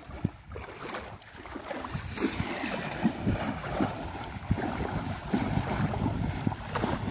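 Legs wading through knee-deep seawater, splashing in quick, irregular strokes that grow louder about two seconds in. The splashing is done to drive fish toward a set shore net.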